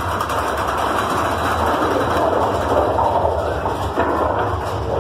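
Mine-train roller coaster running along its track, heard from a seat on the train: a steady, loud rumble and rattle of the cars and wheels.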